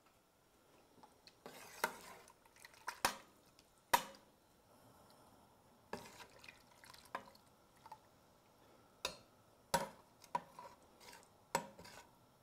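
Spoon stirring soup in a stainless steel stockpot, knocking and scraping against the inside of the pot with about eight irregular clinks.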